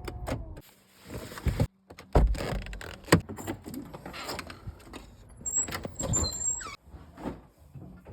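A string of knocks and thumps with some rustling, and a short high squeak about six seconds in.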